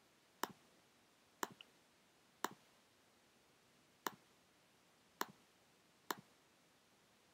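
Six sharp single clicks of a computer mouse button, spaced about a second apart, as items are picked from an on-screen menu.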